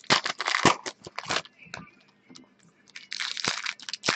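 Foil trading-card pack wrapper crinkling as it is torn open and handled, in two spells: one over the first second and a half, another from about three seconds in.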